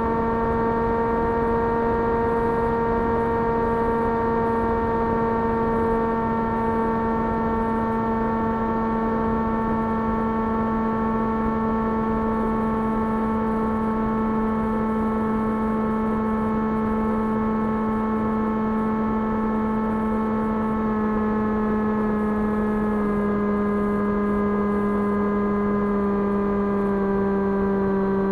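Electric 2300KV brushless motor and propeller of an S800 FPV flying wing, running at steady cruise throttle with a whine and rushing air. The pitch sags slowly, then steps down a little a few times near the end as the throttle is eased back.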